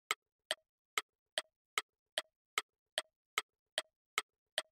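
Clock-style ticking sound effect marking a quiz countdown timer: sharp, evenly spaced ticks, about two and a half a second.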